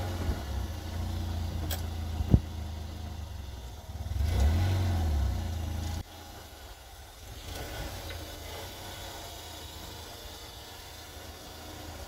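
Lifan X60's engine running, revving up and back down about four seconds in, with two sharp clicks a couple of seconds in; the sound drops off abruptly halfway through and carries on much quieter. The engine is run to check for rattle from the exhaust pipe's heat shield, which has just been refastened with a hose clamp.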